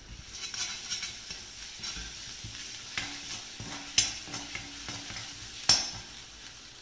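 Ginger-garlic paste and fennel seeds sizzling in hot oil in an iron kadai while a steel slotted spatula stirs them, with sharp clacks of the spatula against the pan about once a second, the loudest about four seconds in and again near six seconds.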